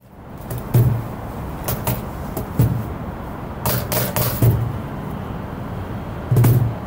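Drum kit played sparsely in free time: irregular, separate strikes, each a low drum thud with a sharp stick or cymbal attack, over a steady hiss.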